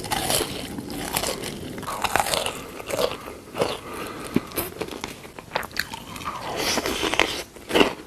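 A person biting and chewing crunchy food close to the microphone: a run of irregular crunches and wet clicks.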